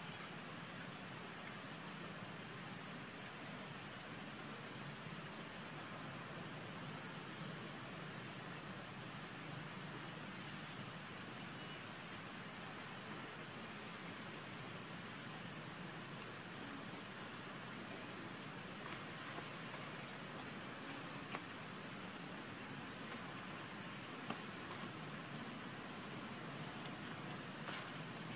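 Steady high-pitched drone of insects, one unbroken thin note held over a soft background hiss, with a few faint clicks late on.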